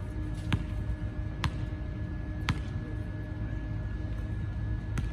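A basketball being dribbled on an outdoor hard court: a few sharp bounces, irregularly spaced about a second apart, over a steady low background rumble and a faint hum.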